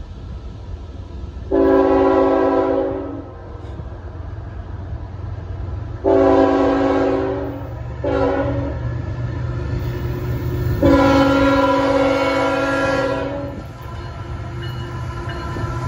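Chime horn of a CSX GE ET44AH diesel locomotive sounding the grade-crossing signal: long, long, short, long, with the last blast held about three seconds. Underneath runs the low rumble of the approaching freight train.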